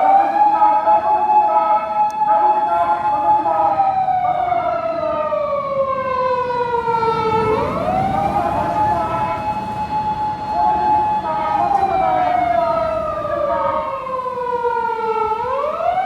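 Japanese police patrol car's siren wailing in long, repeating cycles. The pitch climbs quickly, holds steady for a few seconds, then slides slowly down before climbing again, about every eight seconds.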